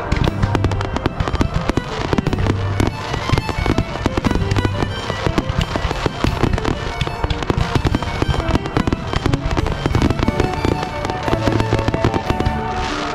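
Fireworks display with many sharp bangs and crackles going off in quick succession, over steady music.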